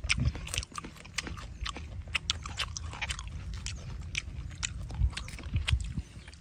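Close-up chewing and biting: a boy crunching into a piece of charred, fire-roasted small game, with a string of sharp, crisp cracks several times a second.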